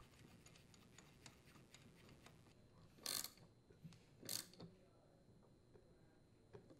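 Hand ratchet turning a bit socket on the impeller mounting bolts of a leaf blower. Faint small clicks at first, then two short bursts of ratchet clicking about a second apart, a little past the middle.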